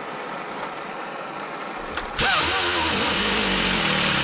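Small pneumatic angle grinder switched on about two seconds in: a click, then loud rushing air exhaust with a wavering whine as it runs at speed. It is already hot and starting to come apart.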